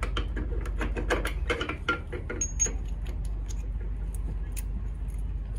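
Anchor chain being worked by hand at the bow chain stopper, links clinking and knocking against each other and the steel fitting in a quick run of clicks over the first three seconds, fewer after, over a steady low hum.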